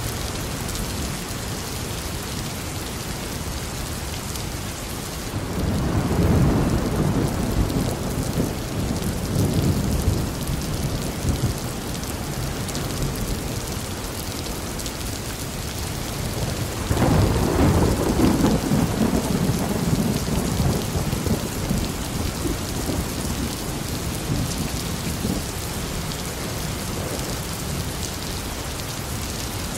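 Steady rain falling, with two long rolls of thunder. The first begins about five seconds in and the second, slightly louder, a little past halfway; each rumbles on for several seconds before fading back into the rain.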